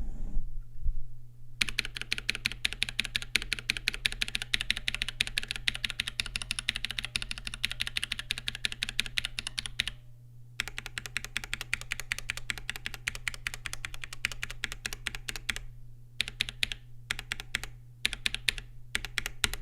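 Typing on a Mark: 65 65% gasket-mount keyboard with an FR4 plate, switching between Holy Panda tactile switches on the alpha keys and L2 linear switches on the number row. Fast continuous keystrokes for about eight seconds, a brief pause, another long run, then shorter bursts near the end, over a steady low hum.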